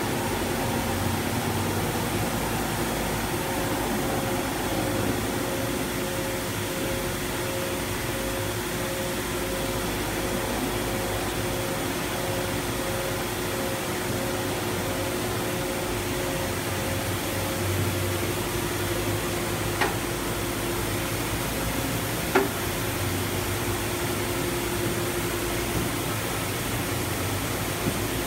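Steady hum of ventilation and machinery in a factory hall, with a faint pulsing tone that stops about two thirds of the way in. Two short sharp clicks come near the end.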